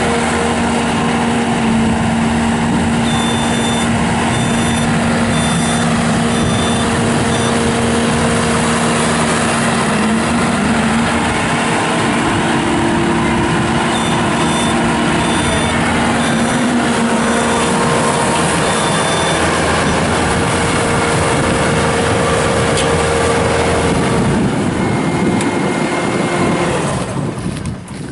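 Bobcat S650 skid steer's diesel engine running hard, driving a Bobcat Brushcat rotary brush cutter, with a steady drone and whine throughout. A high, evenly pulsing beep sounds in two spells, and the machine noise drops away near the end.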